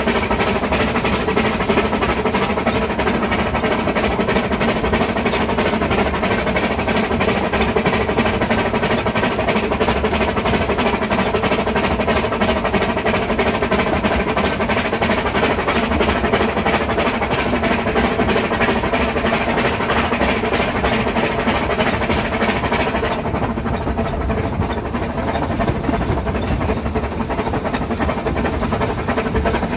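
Kerr Stuart Wren-class narrow-gauge steam locomotive 'Peter Pan' working hard up a steep gradient, its exhaust beating in a fast, steady chuff. About three-quarters of the way through the sound turns duller, losing some of its hiss.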